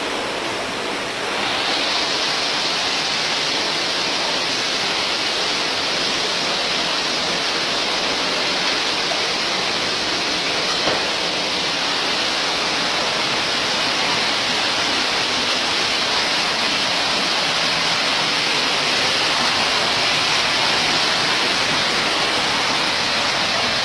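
Steady rush of water from the flood and heavy rain, growing a little louder and hissier about a second and a half in.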